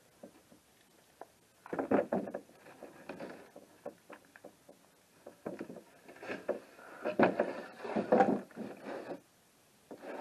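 Wooden boards and pieces knocking and clattering as they are handled and set down, in two bouts of several seconds each.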